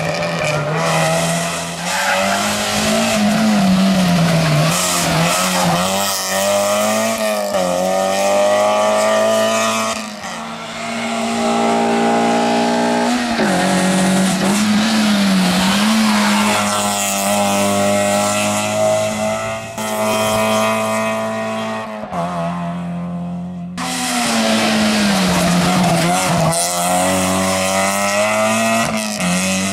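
Toyota Yaris rally car engines revving hard, the pitch rising and falling over and over as the cars accelerate, lift and change gear through bends. Several passes are cut together, with abrupt changes about a third of the way in and again about three quarters through.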